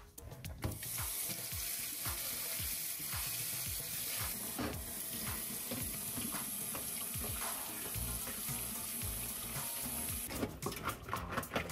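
Kitchen tap running onto halved green peppers in a stainless steel colander in a stainless steel sink, a steady splashing wash that starts about a second in. Near the end the stream is broken up by a run of knocks and splashes as the peppers are handled under it.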